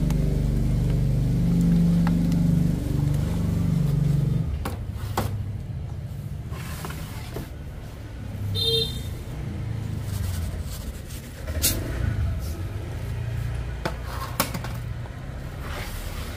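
Small motorbike engine running steadily, then switched off about four seconds in. After that, scattered knocks and rustles and one short high chirp near the middle.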